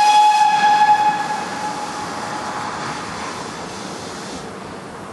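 Steam locomotive whistle: one long blast, already sounding as the sound begins, that fades away over about two seconds, over a steady hiss.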